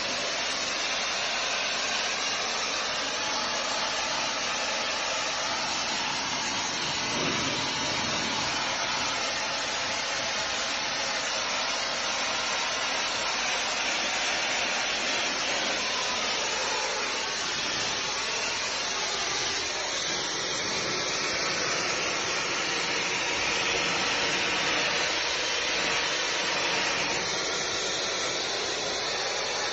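Steady hiss of a pressurised cleaning jet spraying brickwork, with small shifts in pitch as the nozzle moves.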